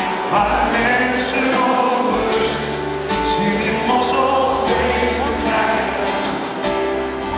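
Live band playing a song with sung vocals over piano, acoustic guitar and upright bass, heard from the audience in a large arena.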